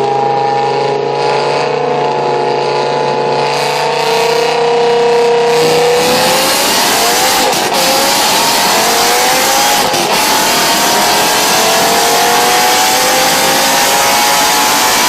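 G-Power-tuned BMW M5 engine running under load, its note slowly rising. About six seconds in, the note drops and then climbs steadily again while a loud rushing noise joins in.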